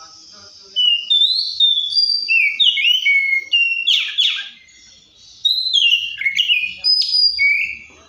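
Oriental magpie-robin singing: a varied run of whistled phrases, with notes gliding up and down, breaking off briefly around the middle and then resuming.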